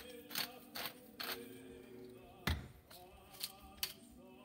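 Salt and pepper being shaken into a pot of pasta: a series of short, sharp rattling shakes, with one dull knock about two and a half seconds in. Faint music plays underneath.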